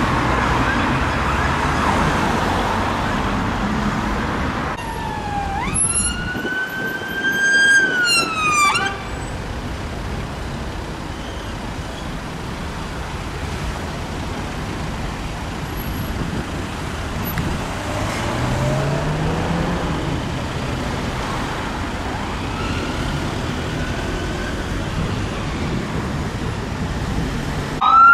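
A British police car siren sounds one wail, rising sharply, climbing slowly and then falling, over city traffic noise. The rest is passing traffic with faint snatches of siren and one engine revving up briefly.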